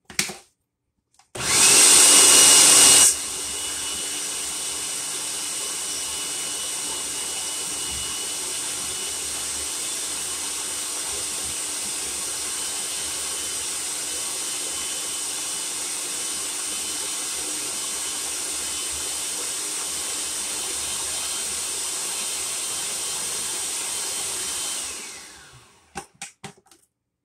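Electric food processor running, blending water into crumbly pie-crust dough so it starts to come together. It starts loudest for about two seconds, then settles into a steady whir for about twenty seconds, and winds down near the end.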